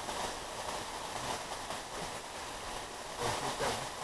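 Steady rushing outdoor background noise, like wind on the microphone, with no bang. A few faint short sounds come near the end.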